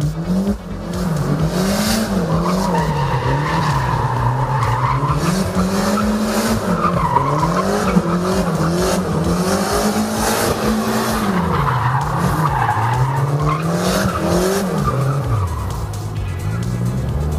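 Nissan 180SX with a swapped Toyota 2JZ inline-six drifting, the engine revving up and falling back over and over, about once every two seconds, with tyres squealing. Near the end the revs sag lower before picking up again.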